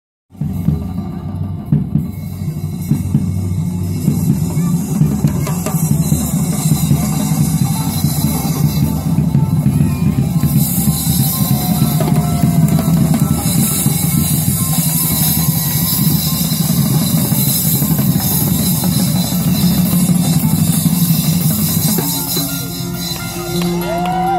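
A group of drummers playing LED-lit marching drums in a dense, driving rhythm with deep bass-drum hits. Near the end the drumming drops off.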